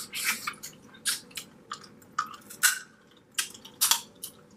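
Close-miked wet eating sounds from a seafood boil: a run of short, sharp smacks, sucks and slurps at irregular intervals, the loudest right at the start and again near the end.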